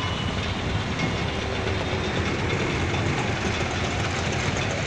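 Steady, dense traffic din with engines idling.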